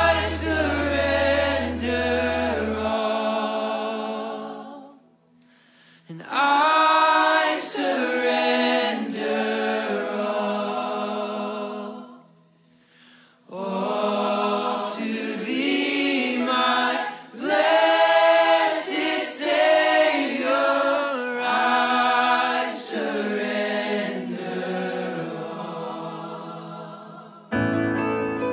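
Background song with sung vocals in long phrases, dropping out briefly twice. Near the end the singing gives way to a steadier instrumental part.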